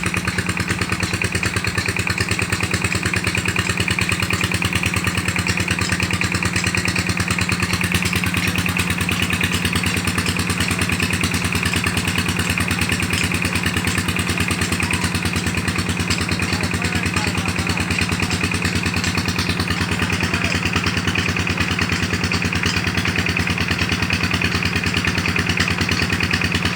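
A small engine running steadily at idle, with a rapid, even beat and a constant low hum.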